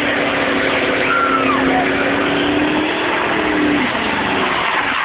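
Supercharged 5.4-litre V8 of a Ford SVT F-150 Lightning held at high revs in a burnout, the rear tyres spinning in place. The engine note eases off a little under four seconds in.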